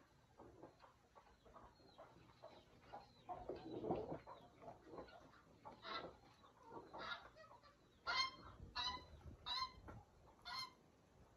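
Thick corn batter for pamonha being stirred with a long metal spoon in a plastic tub, in irregular wet strokes. From about eight seconds in, a farm bird calls four times in short pitched calls, louder than the stirring.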